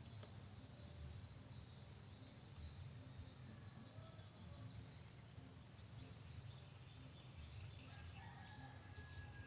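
Faint outdoor ambience: a steady high-pitched insect drone with a few faint bird calls, one held call near the end, over a low rumble.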